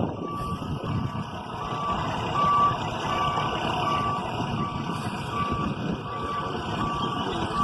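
A heavy vehicle's reversing alarm beeping at an even pace, about once every three-quarters of a second, over the vehicle's engine noise.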